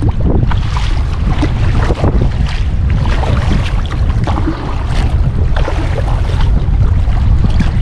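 Strong wind buffeting the microphone in a low, steady rumble, with choppy water splashing and slapping against a kayak in many short irregular bursts.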